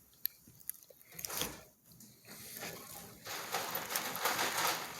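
A person chewing a mouthful of salad close to the microphone: a few sharp clicks in the first half, then steady crunching from about halfway.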